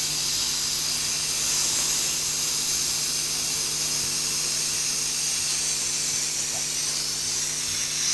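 Steady, loud hiss of gas rushing through refrigerator pipework, over the steady hum of an electric motor.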